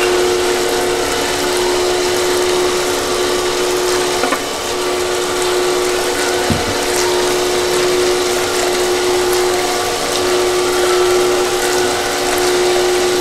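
Automatic spiral-wheel gold panning machine running: a steady pump hum under the splash and trickle of water from the spray bar washing over the spiral pan and pouring into the tub below.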